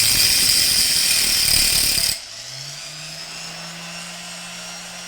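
Dremel rotary tool with a reinforced cutoff wheel grinding through a bolt, a loud harsh hiss that stops suddenly about two seconds in as the wheel comes off the work. The tool then keeps running free with a quieter steady whine, its pitch rising briefly as it comes back up to speed.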